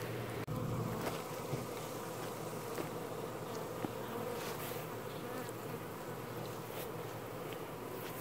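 Steady buzzing hum of a large cloud of honeybees in flight around bee-covered buckets and a hive box.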